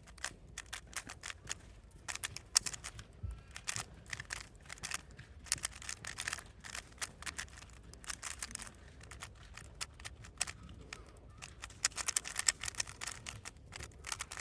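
Faint, irregular plastic clicking of a speedcube being turned by hand, in quick runs of turns with short pauses between.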